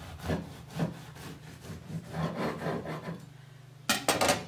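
Knife sawing back and forth through a seeded protein loaf on a wooden cutting board: several rasping strokes through the crust of oats, flax and sesame. Near the end, a short sharp clatter as the knife is put down.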